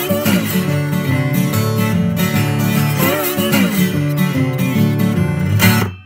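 Acoustic guitar music, cutting off abruptly just before the end.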